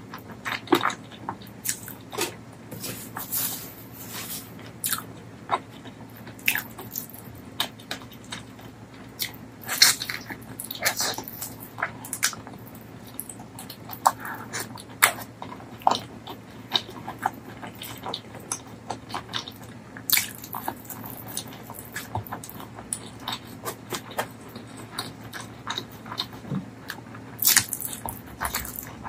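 Close-miked eating: wet chewing, lip-smacking and sharp mouth clicks, irregular throughout, as a person eats spicy mutton curry and rice by hand. A faint steady low hum runs underneath.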